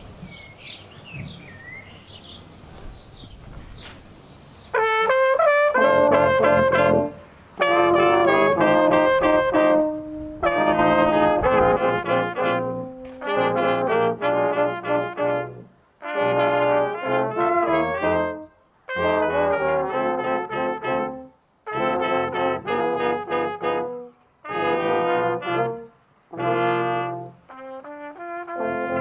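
Brass choir of trombones, trumpets and a low brass horn playing a slow piece in sustained phrases separated by short breaths, coming in together about five seconds in. Before it, birds chirp faintly.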